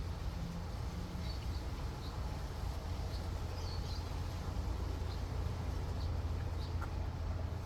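Steady low hum of a car cabin, with a few faint small ticks from eating over it.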